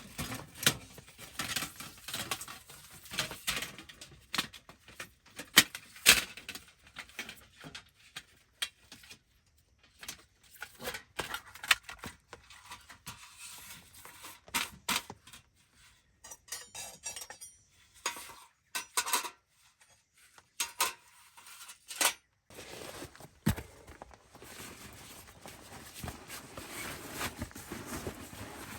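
Camp dishes, cookware and utensils clinking and knocking as they are handled, in irregular strikes with short pauses between them.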